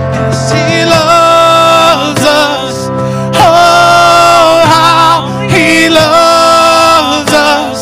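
Worship band music with a singer holding three long, wordless notes with a wavering vibrato over a steady instrumental backing.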